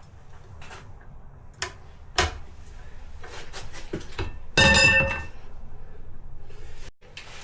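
Clinks and knocks of metal tools on a manual tire changer as a Mojo tire lever is fitted against the rim to mount the tire, with one louder ringing metal clank about halfway through.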